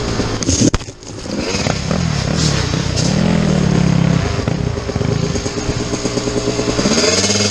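Dirt bike engine under way on a trail, revving up and down with the throttle. Just under a second in there are a couple of sharp clattering knocks and the engine briefly drops away, then its pitch rises and falls as it accelerates again.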